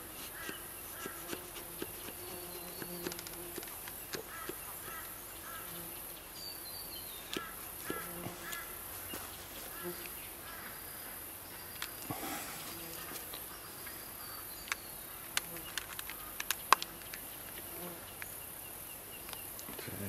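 Tetragonula carbonaria stingless bees buzzing faintly around an opened hive. Now and then there are sharp clicks and scrapes as a knife is worked down through the brood and propolis between the two halves of the box.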